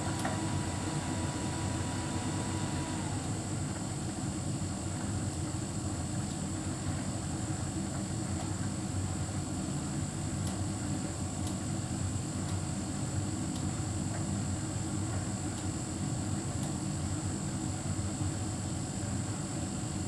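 Hotpoint heat pump tumble dryer running: a steady low drone from its drum and fan motors with a constant high whine and a few faint ticks. A faint tone slides down and stops about three seconds in.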